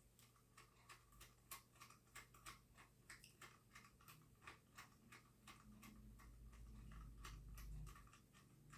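Faint, rapid clicking of plastic tripod parts being handled and fitted together, about three to four clicks a second, with a low handling rumble swelling near the end.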